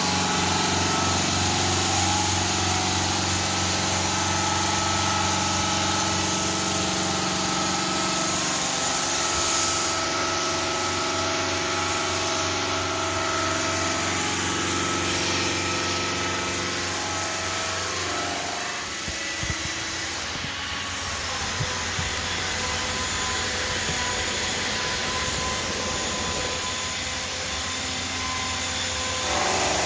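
Denver 5-axis CNC bridge saw running steadily, its blade cutting a curve in 20 mm black granite, with a steady motor whine over a continuous hiss. About eighteen seconds in the sound changes and drops slightly.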